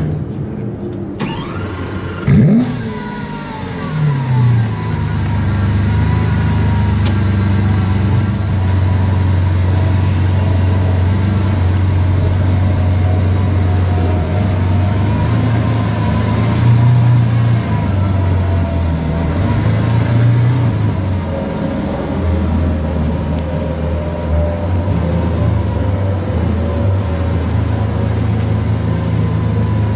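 Lamborghini Aventador LP700-4's 6.5-litre V12, fitted with a sports exhaust, starting: it fires about two seconds in with a loud flare, then its revs fall and it settles into a steady idle. The idle rises briefly twice midway.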